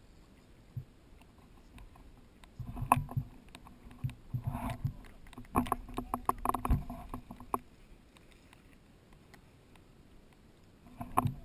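Muffled knocks and splashing heard through a GoPro's sealed dive housing on a pole held at the sea surface. They come in short clusters, about three seconds in, again from about five to seven and a half seconds, and once more near the end, with quiet sea between.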